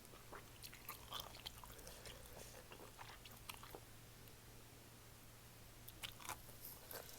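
Faint close-miked chewing of malatang: a person eating, with scattered small sharp mouth clicks and bites.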